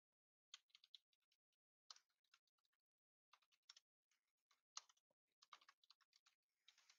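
Faint typing on a computer keyboard: short, irregular bursts of key clicks.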